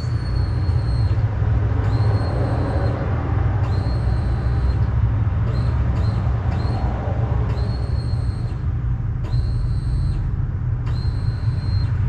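1994 Chevy C/K1500's electric fuel pump humming with a high whine in about seven or eight short bursts, each about a second long, as it runs on power fed directly to its wire. A steady low rumble lies underneath.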